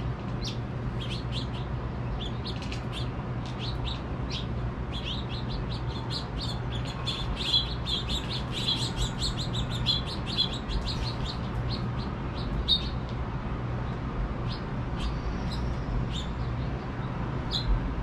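House finches chirping with many short, high calls, thickest in the middle stretch, over a steady low hum.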